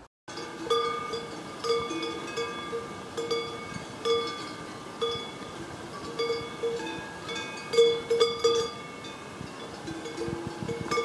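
A cow's neck bell clanking irregularly as the cow grazes, about one or two strikes a second, each ringing briefly.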